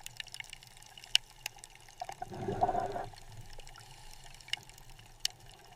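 Faint water sounds: scattered small clicks, with a brief gurgling swell a little over two seconds in.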